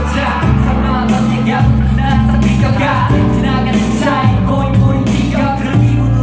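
Live pop song played loud over an arena sound system, a male vocalist singing into a microphone over a steady bass line.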